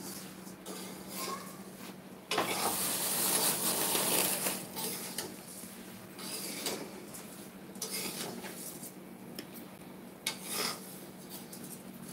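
Metal spatula stirring and scraping dry-roasting rice grains around a steel pan on a gas stove: repeated scrapes with the rustle of the grains, loudest about two to four seconds in, over a steady low hum.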